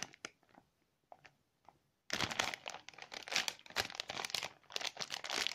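Clear plastic toy packaging crinkling as it is handled, starting about two seconds in after a near-quiet stretch with a few faint ticks.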